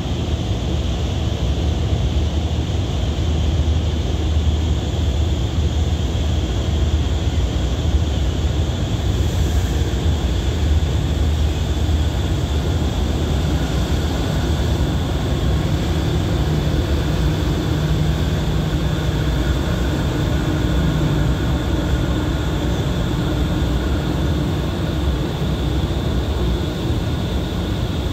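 Diesel engine of an Alsthom diesel-electric locomotive running with a steady low drone while it hauls a passenger train slowly into the platform.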